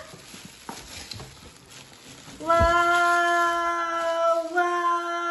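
A voice holding one long, steady note from about two and a half seconds in, stepping slightly higher about halfway through, with a soft thump as it begins.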